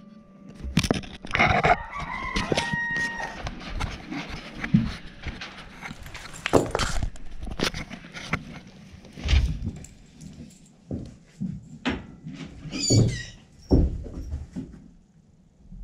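Irregular knocks, thumps, scrapes and rustling as someone moves about on a straw-bedded barn floor, handling the camera and a lead rope. A chicken calls briefly near the end.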